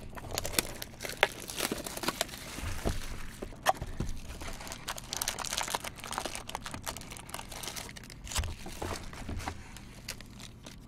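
Trading-card packs and cardboard boxes being handled: a steady crinkling and rustling of wrappers, broken by many small clicks and taps.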